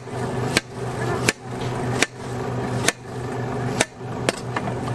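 A knife chopping fruit on a cutting board: six sharp knocks, a little under a second apart, over a steady low hum.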